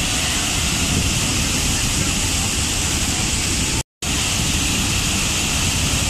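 Large waterfall with a heavy volume of water plunging down a rock face, a steady, dense rush of falling water. The sound cuts out completely for a split second about four seconds in, then resumes unchanged.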